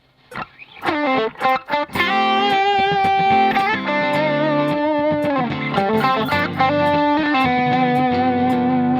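Ibanez AZ2204 electric guitar playing an improvised D Dorian solo line over a D minor 7 to G7 progression. About a second in comes a quick run of short notes, then long sustained notes with vibrato and string bends sliding between pitches.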